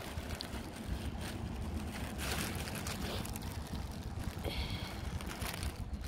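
Wind buffeting the microphone, with a short gull call about four and a half seconds in.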